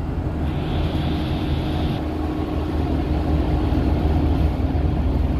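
Shuttle bus riding along the road, heard from inside the cabin: a steady low engine and road rumble, with a brief higher hiss from about half a second to two seconds in.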